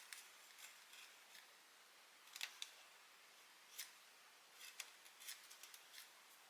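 Faint, scattered light clicks and snips, about a dozen small sharp sounds at irregular intervals over quiet room tone.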